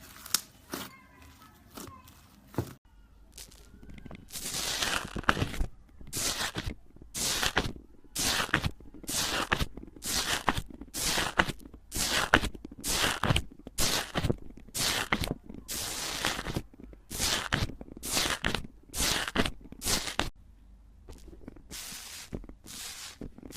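Slime being squished over and over, each squish a short wet, crackly burst, about three every two seconds, stopping shortly before the end.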